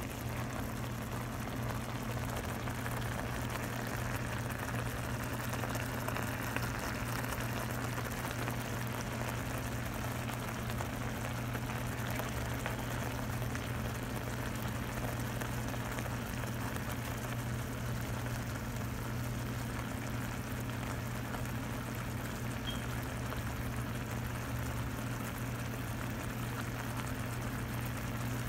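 Shrimp simmering in a frying pan of garlic butter sauce, the sauce bubbling and sizzling with a steady crackle. A steady low hum runs underneath.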